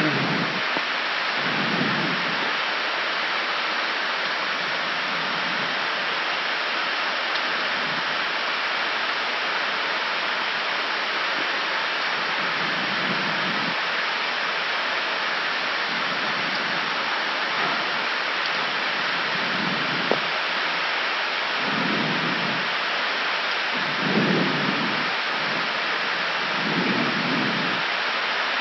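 Steady rushing noise of airflow and ventilation on an Airbus A319 flight deck in descent, with a few brief low swells and one short click about twenty seconds in.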